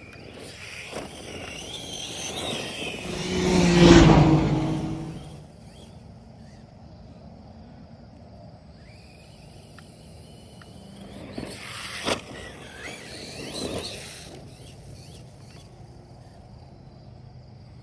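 Electric RC truck, a Losi Baja Rey 2.0, driving past twice, its motor rising in a whine as it accelerates, with tyre and chassis noise. The first pass is close and loud. During the second pass there is a single sharp knock.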